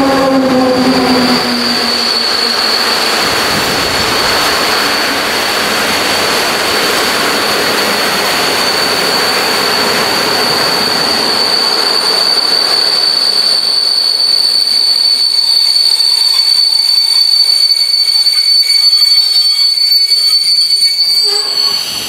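An EP09 electric locomotive-hauled passenger train passing at close range, its coaches rolling by with a steady high-pitched squeal from the running gear over the rolling noise. In the first second or so the locomotive's hum drops in pitch as it goes by.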